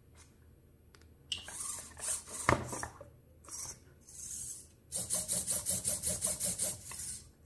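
Bittle X robot dog's small servo motors buzzing in short bursts as it rears onto its hind legs and performs a boxing routine, with a single knock about two and a half seconds in. From about five seconds in the buzzing comes in a fast, even run of about five pulses a second as the front legs punch.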